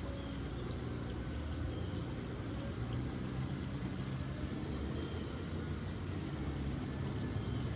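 Steady low hum of a distant engine, with a few faint short high chirps over it.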